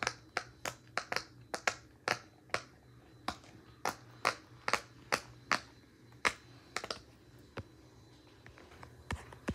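Bubbles of a jumbo silicone Pop-It fidget being pressed: a run of sharp pops, about two to three a second, thinning out near the end.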